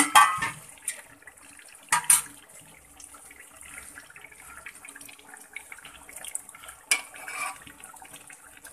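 Chicken, tomatoes and masala frying in oil in a cooking pot, sizzling faintly, with a few sharp knocks of a spoon against the pot at the start, about two seconds in and about seven seconds in.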